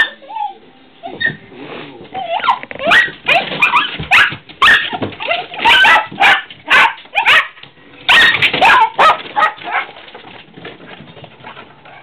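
Two small dogs barking excitedly at squirrels: a rapid string of loud, sharp barks mixed with high yips and whines, easing off near the end.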